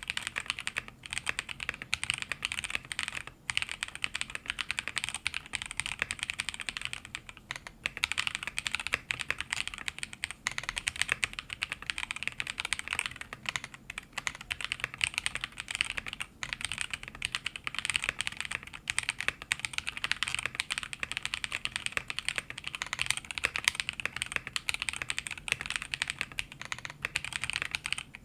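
Continuous fast typing on a mechanical keyboard with stock, unlubed Zaku linear switches (63.5 g double-stage springs, long-pole extended stems) in a plateless board with a clear acrylic tray-mount case and PBT keycaps: a rapid run of bright, snappy clacks with a few short pauses.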